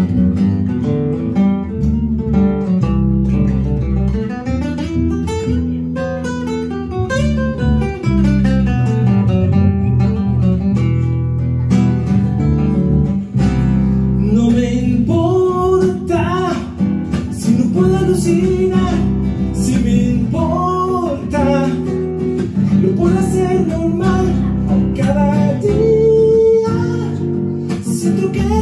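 Live song played on a fingerpicked classical guitar with electric bass underneath, in an instrumental passage of quick picked runs. A man's singing voice joins in about halfway through.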